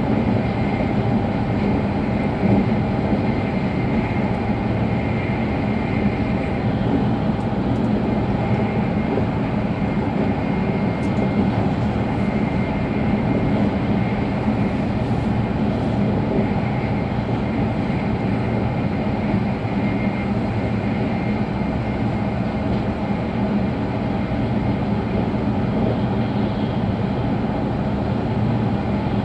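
Steady running noise heard inside a car of an E5-series Shinkansen travelling at speed: an even low rumble with a faint steady high whine above it.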